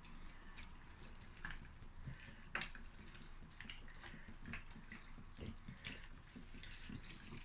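Water dripping and splashing onto freshly sown soil in irregular small spatters, with one sharper splash about two and a half seconds in.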